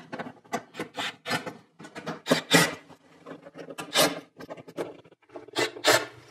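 Irregular scraping and rubbing, a string of short rasps, from the plastic wheel-arch fender liner and a cordless drill's bit working at its 8 mm fasteners.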